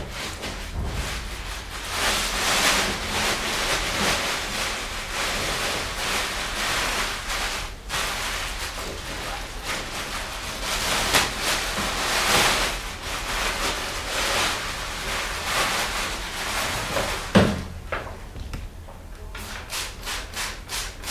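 Thin plastic shoe covers crinkling and rustling as they are pulled off the feet and rolled up, with a single knock near the end of the rustling. Then a trigger spray bottle squirts disinfectant in quick repeated sprays, about four a second.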